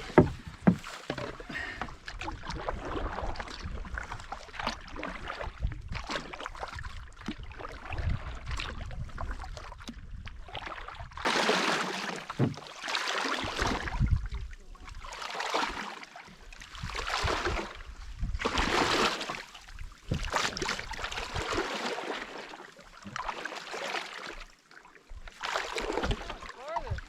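Canoe being paddled, with paddle strokes washing through the water about every two seconds in the second half. A low rumble runs under the first half.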